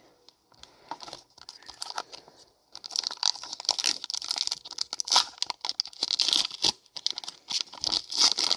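Foil wrapper of a Pokémon booster pack crinkling and being torn open: faint crackles at first, then a dense run of sharp rustling and tearing from about three seconds in.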